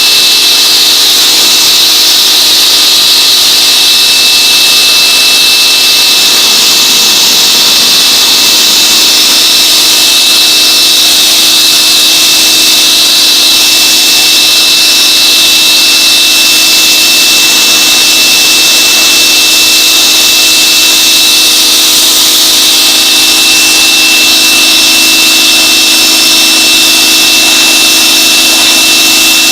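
Electric 1800 psi pressure washer running continuously, its jet from a 15-degree nozzle spraying across deck boards: a loud, steady hiss with a steady high whine from the motor and pump.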